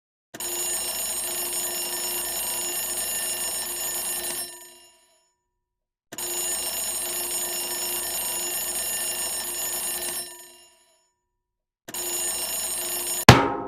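Alarm clock bell ringing in three bursts of about four seconds each, the third cut short by a single sharp, loud bang with a short ringing tail.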